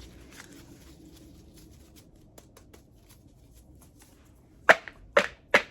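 Tarot cards being gathered up into a deck by hand: faint card rustles and light clicks, then three sharp card taps about half a second apart near the end.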